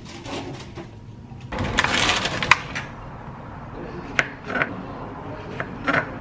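A loud rustle and clatter about two seconds in, ending in a sharp click, then a chef's knife slicing strawberries on a plastic chopping board, the blade knocking the board about four times.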